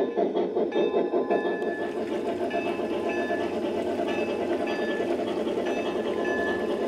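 Sound system of a battery-powered G-scale Bachmann two-truck Shay model locomotive playing steam chuffs, at about three to four a second at first, then settling into a steadier running sound with a short ringing tone repeating about twice a second from about two seconds in.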